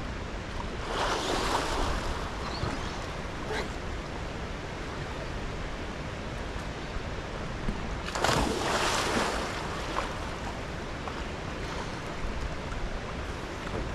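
Steady rushing of flowing water, swelling louder twice, about a second in and again about eight seconds in, with a couple of faint clicks.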